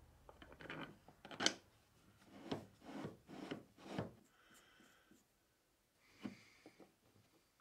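Short wooden scrapes and knocks from hand work on wood: about eight separate strokes over the first four seconds, then one more about six seconds in.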